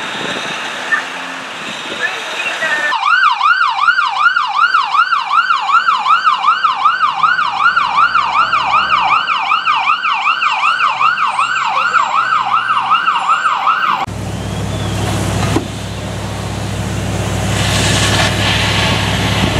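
Emergency vehicle's electronic siren in a fast yelp, sweeping rapidly up and down about twice a second. It starts about three seconds in and cuts off abruptly after about eleven seconds. It gives way to a steady low engine drone with a rushing hiss.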